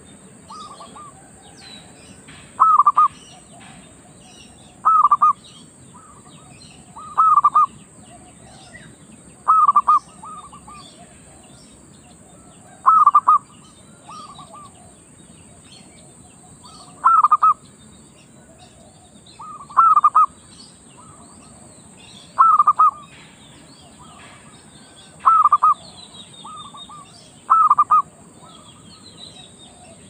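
A zebra dove gives its song, short bubbling cooing calls repeated about every two to three seconds, most with a softer note just after. A longer pause comes around the middle. Faint chirping of other birds runs underneath.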